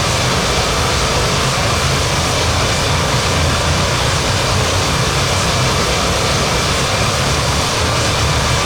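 Airbus A330-300 jet engines running, a steady noise with a strong low rumble beneath it and no change in level.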